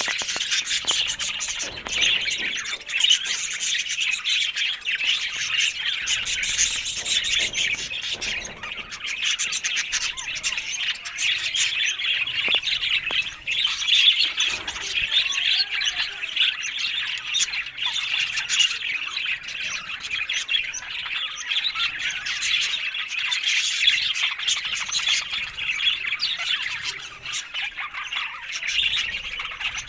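Budgerigars chattering without pause: a dense stream of short, high calls and warbling.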